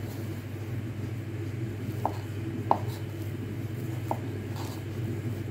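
A steel spoon stirring and mashing a thick rice-flour and hot-water dough in a bowl, with a few light clinks of the spoon against the bowl. Under it runs a steady low hum.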